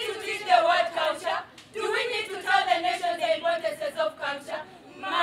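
A group of women's voices singing together in long held phrases, with a short break about one and a half seconds in.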